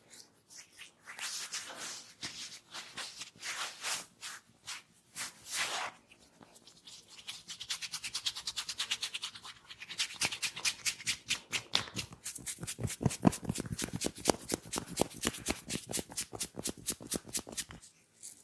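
Head massage on the hair and scalp: scratching, rubbing strokes about two a second, then from about seven seconds in a fast, even run of taps, about five a second.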